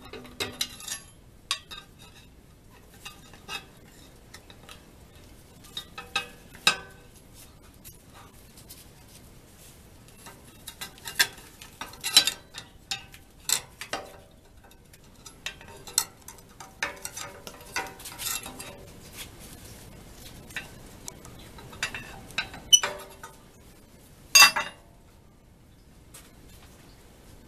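Steel parts of a wood boiler being handled and worked loose by hand: irregular metallic clinks, scrapes and knocks of a bent steel strap and bolts against the boiler's steel plates, with the two loudest clanks near the end.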